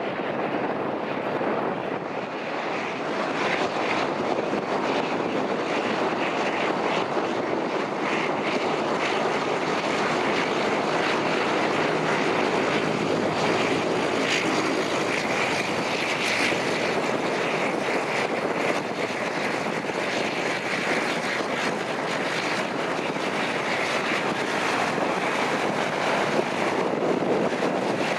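De Havilland Canada Dash 8 Q200's twin Pratt & Whitney Canada PW123 turboprops running at taxi power, a steady propeller and engine drone with a high hissing whine that is strongest in the middle as the aircraft turns past close by.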